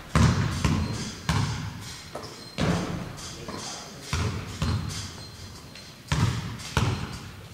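A series of heavy thuds at irregular intervals, about seven in all, each dying away over a fraction of a second.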